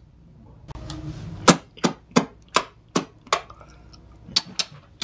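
Wet lip-smacking and sucking as fingers are licked clean after eating fried chicken: a run of sharp smacks about three a second, a short pause, then two more near the end.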